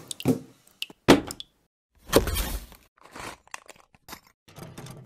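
Sharp knocks and cracks, a longer noisy burst about two seconds in, then a scatter of small clicks.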